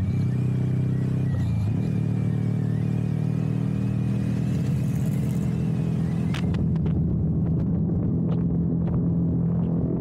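Motorcycle engine running at a steady cruising speed, with a slight change in pitch about a second and a half in. Wind rushes over the microphone until about six seconds in.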